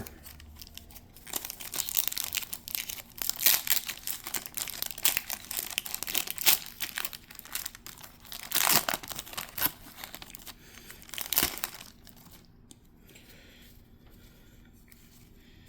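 Wrapper of a 1990 Score hockey card pack crinkling as it is torn open, with louder bursts of crinkling near nine and eleven seconds. It stops about twelve seconds in.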